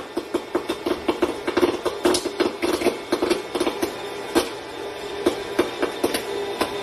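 Popcorn popping in a popcorn machine: many quick, irregular pops over the steady hum of its motor.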